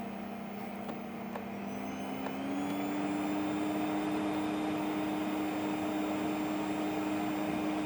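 Vacuum cleaner motor running off the inverter, speeding up as its power setting is turned up about two seconds in: the pitch rises, then holds steady and a little louder.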